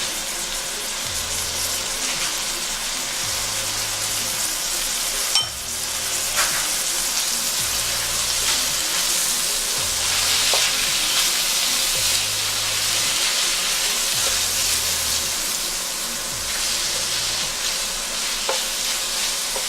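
Chopped vegetables, egg and freshly added spring onion sizzling in hot oil in a frying pan while being stirred, with a few sharp clicks of the spoon against the pan.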